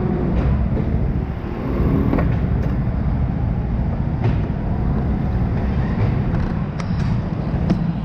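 Go-kart running on an indoor track, heard from a camera mounted on the kart: a dense, steady low rumble with a few sharp knocks and rattles, mostly in the second half.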